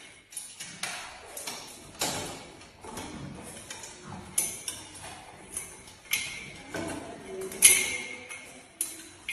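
Metal stair gate rattling and clanking as a cat and a dog climb and paw at it: irregular knocks and clicks with a few longer scrapes, the loudest a little before the end.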